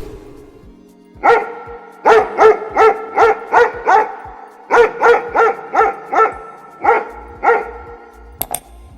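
A dog barking repeatedly in quick runs of short, sharp barks, with a brief pause about halfway.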